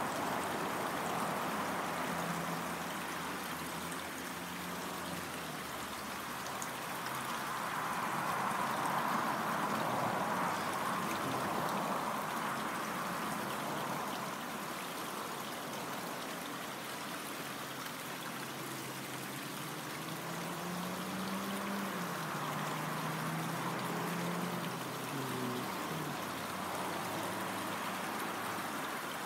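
A brook running: a steady rush of flowing water, swelling a little about eight seconds in.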